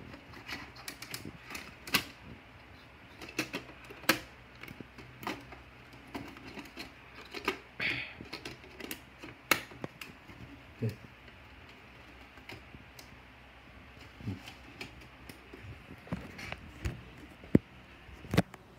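Computer keyboard keys clicking in irregular taps, several a second at first and sparser later, with one sharper click near the end.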